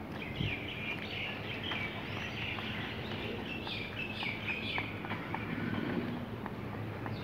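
Small birds chirping and twittering over and over in short repeated phrases, over a steady low hum, with faint taps of running footsteps on asphalt.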